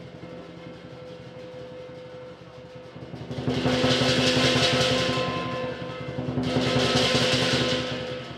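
Southern lion dance percussion: the big drum beats a fast roll, and clashing cymbals swell loud twice, about three seconds in and again near the end.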